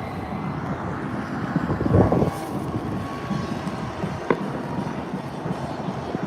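Wind rumbling on the microphone in rain, with distant fireworks going off: a heavier boom about two seconds in and a sharp crack a little after four seconds.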